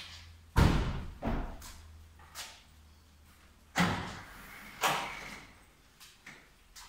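A remote-opened corrugated-steel shed gate unlatching and swinging up on its gas struts, heard as two clunks about a second apart near four to five seconds in. These follow two earlier sharp thuds, the loudest about half a second in, and a low steady hum that stops at the first clunk.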